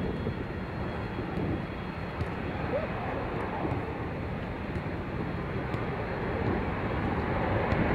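Steady low rumble of outdoor background noise, with no clear event standing out.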